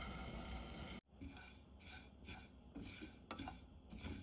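Cumin seeds being dry-roasted. First, seeds pour into a nonstick frying pan with a steady hiss that cuts off abruptly after about a second. Then a spatula stirs and scrapes the dry seeds around the pan in short strokes, about two a second.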